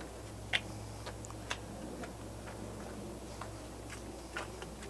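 A low steady hum with a few faint, irregular clicks and taps.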